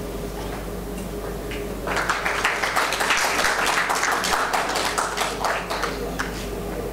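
Audience applause, starting about two seconds in and dying away shortly before the end, over a steady low hum.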